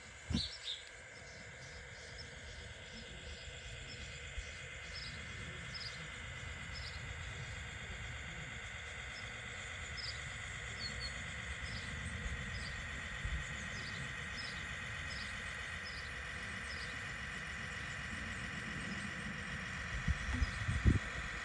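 Whine of a Scaleart RC scale Mercedes-Benz Unimog's electric drivetrain crawling slowly, growing louder as it comes closer, with a few knocks near the end as its tyres climb onto wooden boards. Short high chirps repeat faintly in the background.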